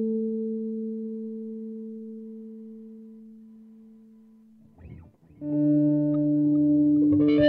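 Instrumental guitar rock music: a sustained guitar note rings and slowly fades over about four and a half seconds. After a short scratchy noise, a new held chord comes in loud, with brighter notes joining near the end.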